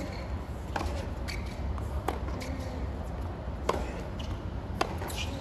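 Tennis rally: rackets striking the ball back and forth, four sharp hits about a second and a half apart, over a steady low background hum.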